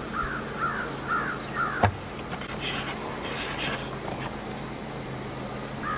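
Crows cawing in a quick series of about five caws, ending with a single sharp knock a little under two seconds in. This is followed by a few seconds of scratchy rubbing or rustling.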